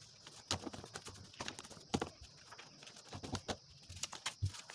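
Sheets of coloured paper being handled on a tabletop: irregular soft taps and paper rustles as the sheets are flipped through and pressed down.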